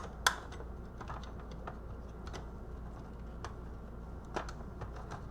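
Scattered light clicks and taps of small plastic parts of a blood pressure monitor being handled during disassembly, with one sharp snap about a quarter second in.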